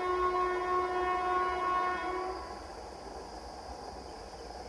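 Electric locomotive's air horn sounding one long, steady blast that stops about two seconds in.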